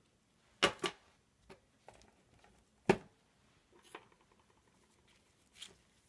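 A self-adjusting automatic wire stripper being handled and worked. Its mechanism clicks sharply, twice in quick succession about half a second in and once more loudly near the middle, with quieter taps and rustles of wire in between.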